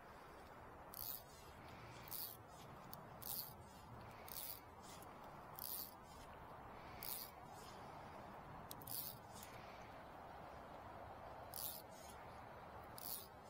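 Steady rush of the river's current. Over it come short hissing swishes, about one a second.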